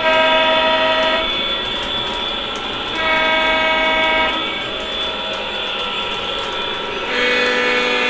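Lionel Legacy O-gauge model diesel locomotive's sound system blowing its multi-chime horn in three blasts of a second or so: at the start, about three seconds in, and near the end, the last one lower in pitch. Between the blasts, the steady running sound of the model train on the track.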